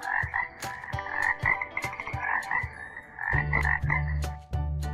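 A frog croaking in quick repeated calls. About three seconds in, a low, pulsing drone joins underneath.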